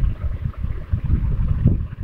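Air buffeting the microphone: an irregular low rumble that swells and dips throughout.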